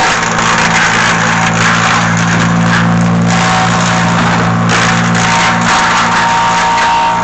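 Wood chipper's engine running under load while it shreds tree branches, with a loud grinding hiss that swells and dips as wood is pulled into the cutters.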